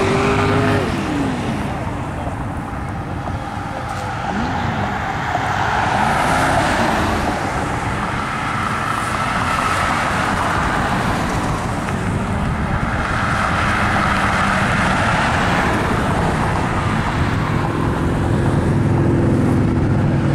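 Road traffic passing on a multi-lane road: cars and a pickup go by one after another, tyre and engine noise swelling and fading with each pass. An engine revs up and falls away at the start, and another engine tone holds steady near the end.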